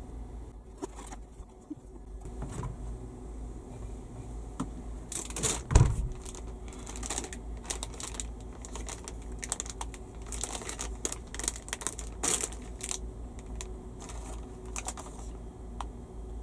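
Irregular small clicks, taps and rustling, like objects being handled, over a low steady hum, with one louder thump about six seconds in.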